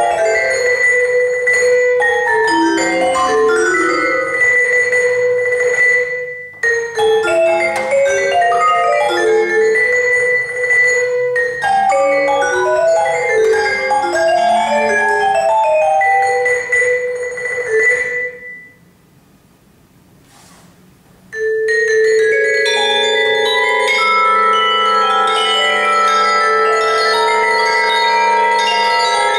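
Solo vibraphone played with mallets: fast runs of short, separate notes, then a pause of about three seconds, after which chords are left ringing on together.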